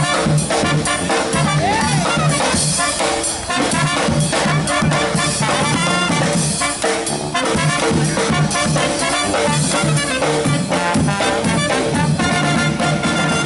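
Live brass band of tuba, snare drum, saxophone and trumpet playing an upbeat swing tune, the tuba and drum keeping a steady bouncing beat under the horns.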